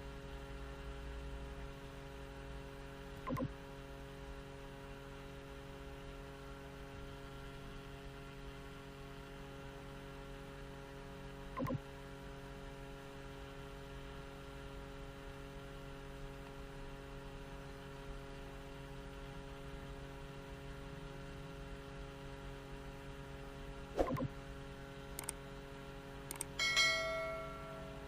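A steady electrical hum made of several fixed tones, with a few single clicks. Near the end comes a short bright chime that rings and fades.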